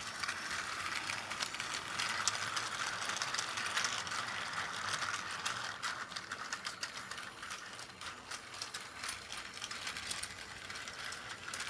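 Plarail C12 steam locomotive toy running on plastic track: its battery motor and gearbox whirring steadily, with a rapid clatter of clicks from the wheels and container wagons rolling over the track joints. Louder in the first half as it passes close, fainter as it goes away round the loop.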